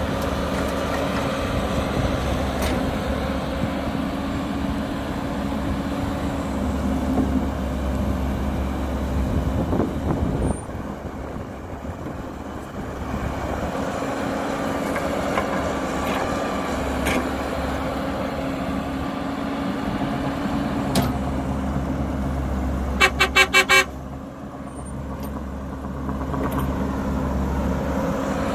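Caterpillar 312B excavator's diesel engine running steadily under load as it digs and swings soil into a dump truck, easing off for a few seconds about ten seconds in. Late on, a vehicle horn gives a quick run of about five short toots, the loudest sound.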